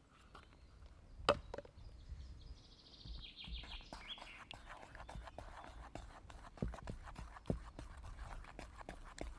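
A wooden stick stirring pancake batter in a metal camping pot, with irregular small clicks and scrapes against the pot wall in the second half. A sharp knock sounds about a second in, and a bird chirps briefly in the middle.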